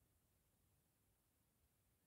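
Near silence, with no audible sound at all.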